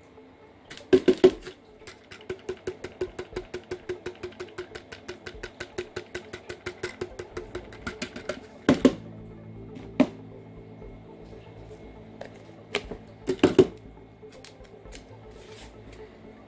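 Rapid, even tapping, about five taps a second for several seconds, as a plastic bottle of fruit flies is tapped and shaken to knock the flies out into culture containers. A few louder knocks of plastic containers are set down among the taps.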